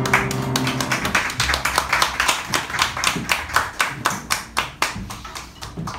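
Small audience clapping as the trio's last chord dies away at the start; the applause thins out and fades near the end.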